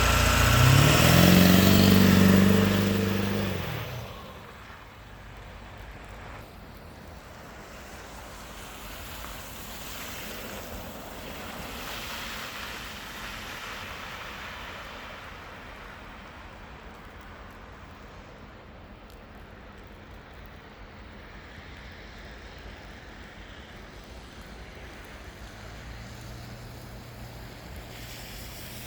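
A motor vehicle's engine running, its pitch rising then falling, fades out about four seconds in. After that there is only a faint, steady outdoor hiss.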